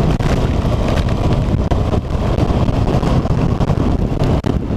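Heavy wind buffeting on the microphone of a moving motorcycle, with the bike's engine running underneath.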